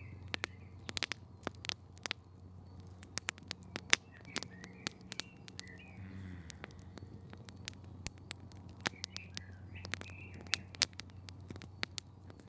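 Forest ambience: many irregular sharp ticks and crackles, a few faint bird chirps now and then, and a low steady hum underneath.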